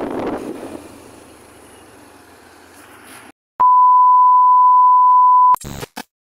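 Wind and road noise rushing past the microphone of a moving motorbike, cutting off abruptly. After a brief silence comes a loud, steady, single-pitched test-pattern beep of the kind played with TV colour bars, lasting about two seconds, then a few short glitchy static bursts.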